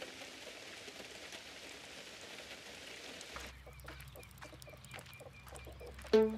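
Quiet outdoor film ambience: a soft even hiss, then after a cut a low steady hum with a row of short high chirps, about three a second. A plucked string note from the score comes in near the end.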